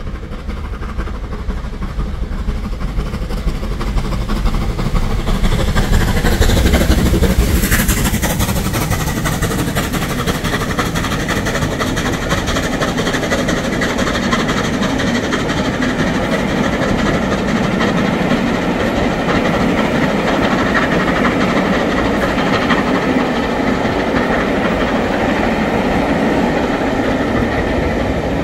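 Bulleid 'Merchant Navy' three-cylinder pacific steam locomotive 35028 'Clan Line' working hard as it passes, loudest about six to eight seconds in. Its train of Pullman coaches then keeps rolling past, the sound staying steady to the end.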